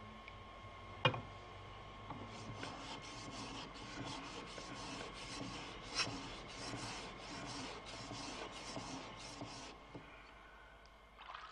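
Japanese sword blade being polished on a wet whetstone: quick, evenly spaced back-and-forth scraping strokes of steel on stone. A sharp click sounds about a second in.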